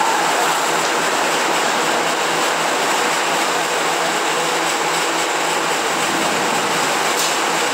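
Heavy rainstorm with strong wind: a steady, loud rushing roar of rain and gusts. A single sharp knock sounds near the end.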